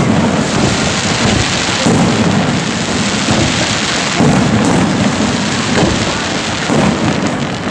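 Aerial firework shells bursting, four deep booms about two seconds apart over a steady hiss.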